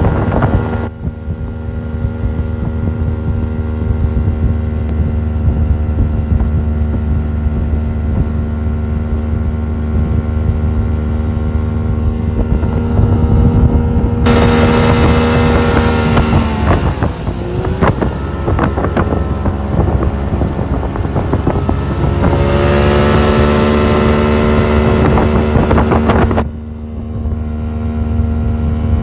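Two-stroke Mercury 90 outboard pushing a 17-foot speedboat at about 30 mph, a steady drone. From about halfway in until near the end, a loud rush of wind and churning wake covers it, and the engine note dips and climbs back twice.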